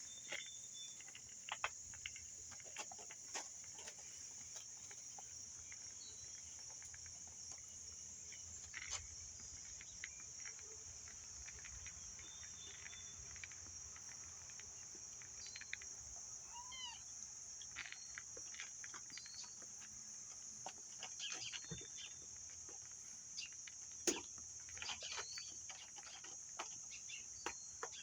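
Steady, high-pitched drone of insects outdoors, with scattered short bird chirps and occasional light clicks and knocks.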